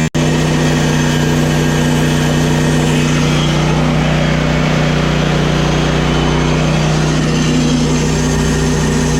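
An engine running steadily at a constant speed, its hum holding one unchanging pitch over a low rumble.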